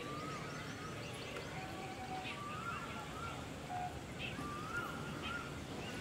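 Steady outdoor background noise with a bird calling over it: a short call that rises and then dips, repeated about every two seconds.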